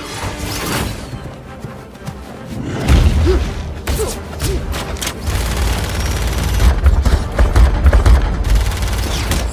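Action-film soundtrack: dramatic music with booms and impacts. A heavy low rumble sets in about three seconds in and keeps going.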